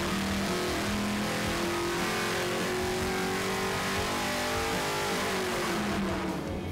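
400-cubic-inch small-block Chevrolet V8 with long-tube headers and a 750 cfm Holley carburetor making a full-throttle dyno pull. Its pitch climbs steadily through the rpm range, then falls away near the end as the run finishes.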